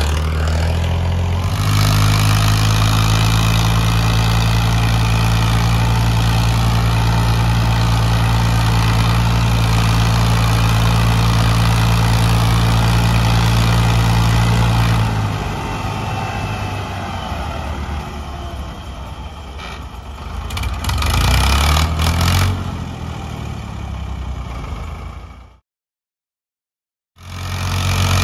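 Ford three-cylinder diesel tractor engines running hard under heavy load as they try to pull a stuck, loaded trolley, a steady strong drone that eases off about halfway through. The revs rise briefly later on, and the sound cuts out for about a second and a half near the end before the engines are heard again.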